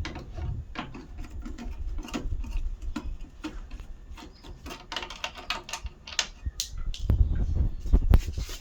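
Irregular small clicks, taps and scrapes of hand tools working on washing-machine parts, with a run of louder knocks near the end.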